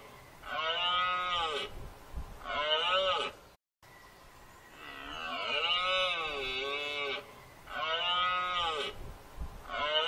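Red deer stag giving its rutting roar: a series of long, drawn-out roars, each rising and falling in pitch, with short pauses between them. The sound cuts out completely for a moment a little under four seconds in.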